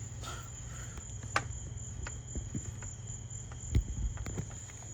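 A steady high cricket-like trill with a low hum underneath. Two sharp clicks, one about a second and a half in and another near four seconds, come from hard plastic and metal multimeter probes knocking as they are worked into a battery's discharge port.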